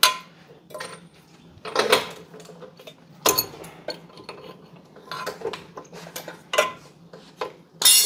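Steel wrench clinking and scraping against spark plugs and the cylinder fittings of a Continental aircraft engine as the plugs are loosened and removed: irregular metallic clinks, a handful of them louder and ringing briefly.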